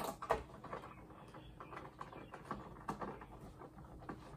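Light, irregular clicks and taps of plastic and metal parts being handled while an old monitor is taken apart, with a few sharper clicks near the start and about three seconds in.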